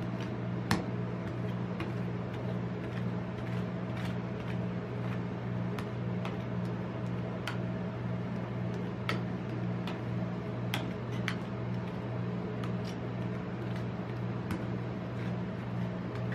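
Metal spatulas scraping over a sheet of ice cream frozen on a steel cold plate, with sharp irregular clicks of the blades knocking the plate, the loudest about a second in, over a steady low hum.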